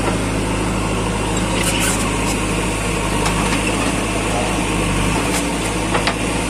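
Diesel engines of a tractor and a backhoe loader idling steadily, with a few short knocks during mud loading.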